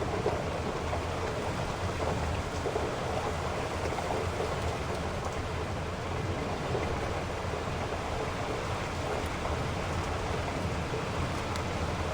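Heavy rain falling steadily: an even hiss with a low rumble underneath and a few faint drop ticks.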